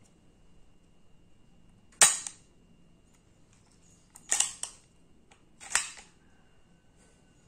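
Marksman Repeater spring air pistol being cocked by its slide and snapped off. There is one loud sharp clack about two seconds in, a quick double clack about halfway through, and another snap near the end.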